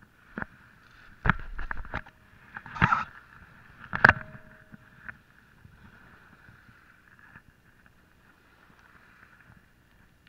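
A handful of sharp clicks and knocks as a spinning rod and reel are handled, clustered in the first half and loudest about four seconds in, the last followed by a short faint whir. Under them a steady hiss of rain.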